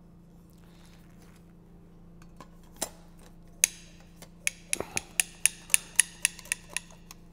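A heavy-duty dispensing gun for a two-component mortar cartridge being loaded and worked: a few separate sharp clicks as the cartridge goes in, then a quick even run of metal clicks from the gun's trigger and ratchet mechanism, about four a second, stopping near the end.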